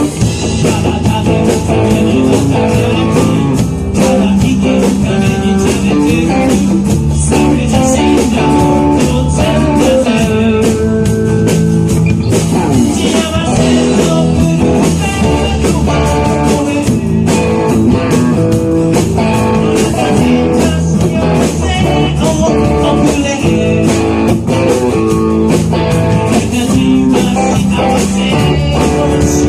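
A rock band playing live: guitar, bass guitar and drums keeping a steady beat, with a man singing.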